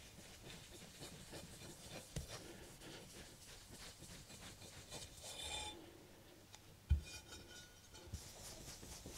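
Cotton cloth rubbed briskly by hand over a polished aluminium engine cover, buffing off metal polish: a faint, rapid rubbing, with a light knock about two seconds in and a louder one about seven seconds in as the cover is handled.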